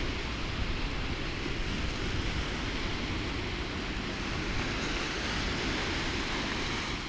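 Steady wash of wind and waves over open water, with a low rumble of wind on the microphone.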